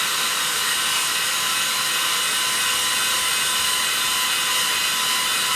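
Small battery-powered Cleanmybricks vacuum cleaner for LEGO running steadily at full speed, its motor giving a high-pitched whine.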